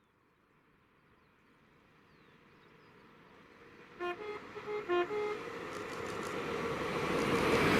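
Approaching express train sounding its two-tone horn, low note then high note, twice in quick succession, as the rush of the train grows steadily louder towards the end.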